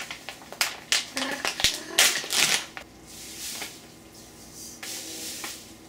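Sugar being measured and poured: a quick run of clicks, taps and plastic-bag crinkles from the sugar bag and measuring cup, then softer hissing as sugar pours from the cup into a saucepan.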